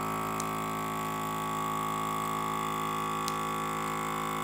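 Small Ziploc countertop vacuum sealer's pump motor running with a steady hum while it draws the air out of a bag of whole fish, with two faint ticks.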